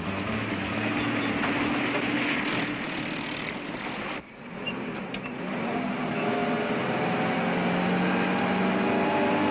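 Jeep engine running, with a sudden break about four seconds in, after which the engine note rises slowly.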